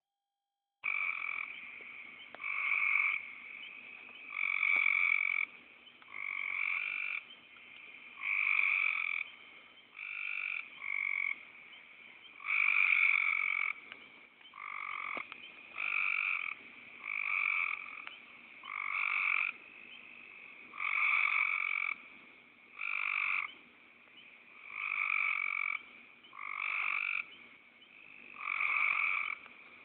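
A frog calling over and over with snore-like croaks, one about every one and a half to two seconds, each lasting half a second to a second.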